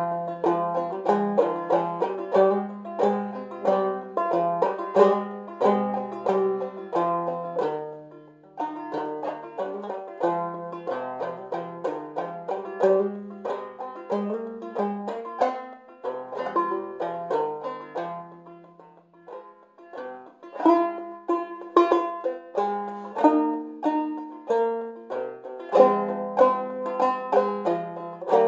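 Five-string banjo played solo: a slow tune of plucked single notes and chords in open G-minor tuning, with the second string lowered from B to B flat. The playing falls away briefly between phrases about 8 and 19 seconds in.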